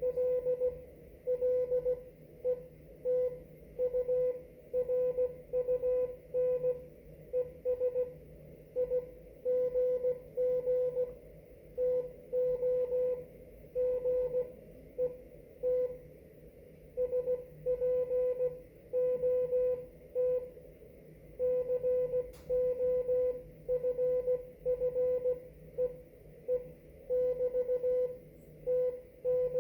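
Morse code (CW) on a ham radio transceiver: a single mid-pitched beep keyed on and off in dots and dashes at a steady sending speed, with faint band hiss in the gaps between characters.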